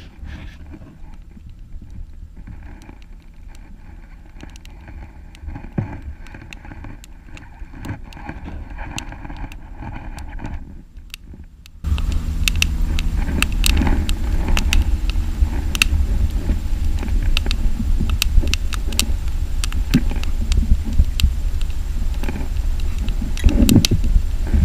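Wood campfire crackling, with many sharp pops and snaps, and wind rumbling on the microphone. Both get suddenly louder about halfway through; the first half is quieter, with only scattered pops.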